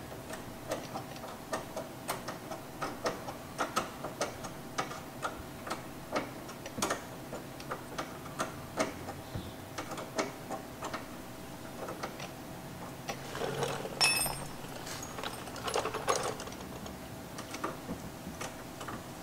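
Quick, uneven light metallic clicks, a few a second, as a wrench works the flare nut of a new stainless brake line tight at its fitting. A short louder clatter with scraping about fourteen seconds in.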